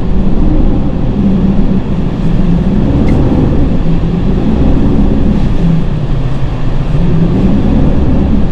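Mitsubishi Triton pickup's engine working under load off-road, heard from inside the cabin. Its revs rise and fall every second or two over a steady low rumble.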